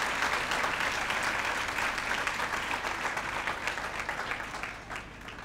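A large congregation applauding, the clapping thinning and dying away near the end.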